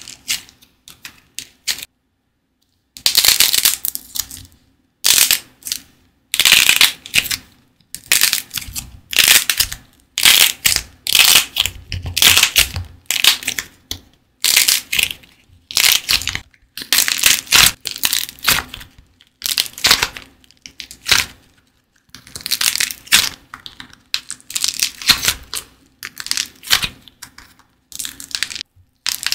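Partly dried modelling clay crackling and crunching as fingers squeeze and press it, in short bursts about every half second to second with a few brief silent pauses, the longest about two seconds in.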